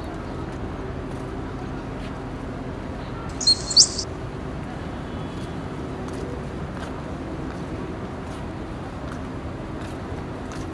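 Steady open-air background noise with a faint low hum; about three and a half seconds in, a bird gives two short, high, sharp chirps.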